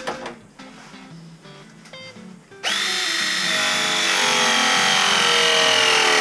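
Battery-powered pipe press tool crimping a copper fitting: a loud motor whine starts suddenly about two and a half seconds in, its pitch sagging slightly as the jaw closes under load.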